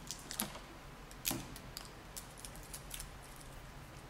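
Light clicks and taps of a fingertip on a smartphone's glass touchscreen as a SIM PIN is tapped in, with hand contact on the tabletop; about a dozen sharp ticks over three seconds, the loudest about a second in, then they stop.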